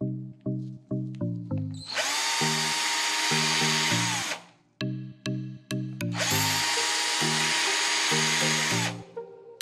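Black & Decker cordless drill run twice, each run about two and a half seconds, its motor whine rising as it spins up and dropping as it stops. Background music with a steady rhythm of plucked notes plays throughout.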